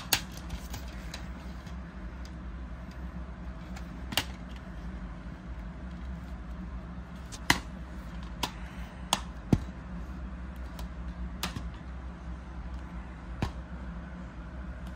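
Plastic DVD cases being handled and knocked against a table: about eight sharp clicks and taps, scattered unevenly, over a steady low hum.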